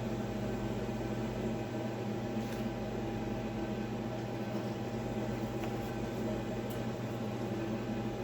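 Steady mechanical hum with a low drone and a thin, steady higher tone, with a couple of faint clicks about two and a half and near seven seconds in.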